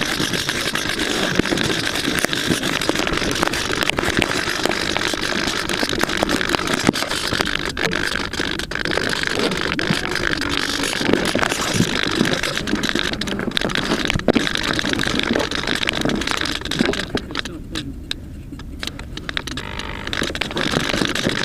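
Electric motor and propeller of an AXN floater jet RC plane running in flight, a steady rush of noise with a steady whine through it, which dips for a couple of seconds near the end before coming back, as if the throttle were eased off.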